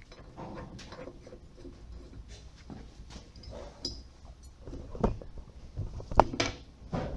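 Scattered clicks and knocks of metal parts being handled as a cylinder head, with its new gasket and bolts, is set in place on a push mower engine, with a few sharper knocks in the second half.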